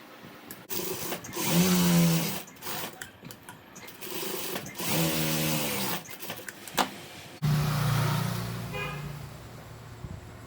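Sewing machine stitching a blouse sleeve seam in three short runs of the motor, the last one longer and fading out. A few clicks of handling sound between the runs.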